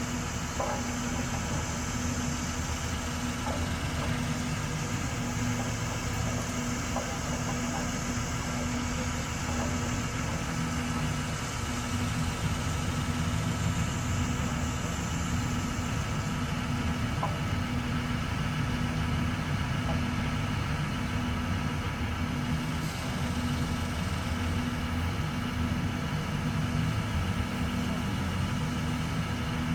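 A large engine idling steadily, with an even low rumble and a constant hum.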